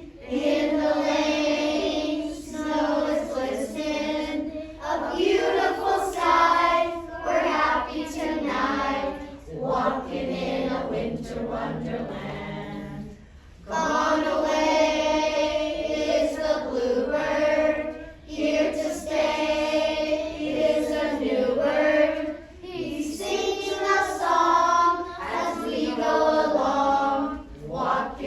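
A group of children singing together as a choir, in phrases with short breaks, pausing for a moment about halfway.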